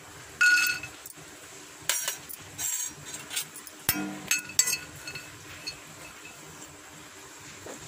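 Clinks and knocks of cooking ware against a kadai as cashews go into the pan and are stirred. There is a ringing clink about half a second in, then several sharp knocks over the next four seconds, and it goes quiet after that.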